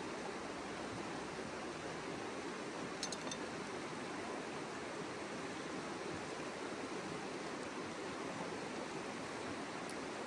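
Mountain river water rushing steadily over rocks, an even wash of sound. A few brief high ticks come about three seconds in.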